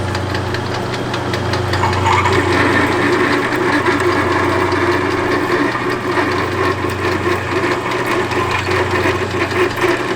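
Metal lathe running with a steady motor hum; about two seconds in a rougher, rattling layer joins it and carries on.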